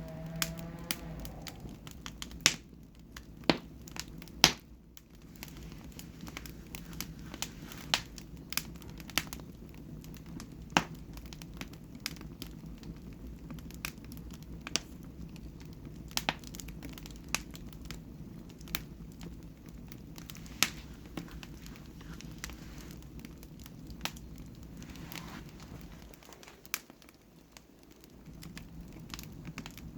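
Wood fire in a fireplace crackling, with sharp irregular pops every second or so over a low steady rumble; a few pops near the start are louder.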